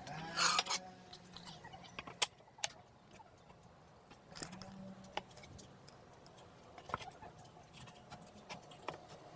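Light handling noises on a wooden jig with an aluminium T-track: a brief rustling scrape about half a second in, then scattered soft clicks and taps.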